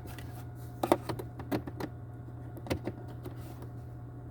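A few light plastic clicks and taps as the glove box's hook and damper arm are handled and pulled out to extend, with a steady low hum underneath.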